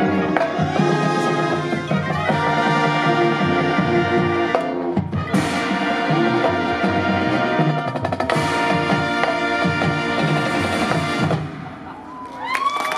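Marching band playing the final bars of its show, with brass, mallet percussion and drums together and big accented hits about five and eight seconds in. The music ends about eleven seconds in, and the crowd starts cheering near the end.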